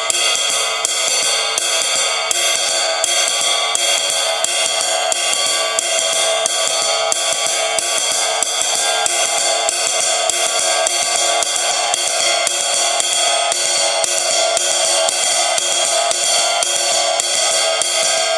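Paiste Masters ride cymbal played with a wooden drumstick in a continuous legato ride pattern. The strokes come evenly spaced over the cymbal's constant ringing wash.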